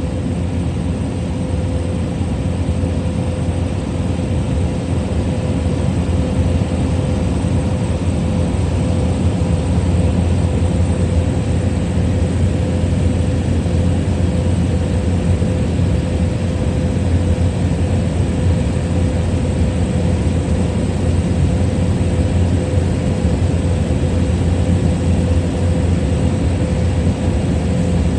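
Small propeller plane's engine and propeller droning steadily, heard inside the cabin in flight, with a faint steady whine above the low rumble.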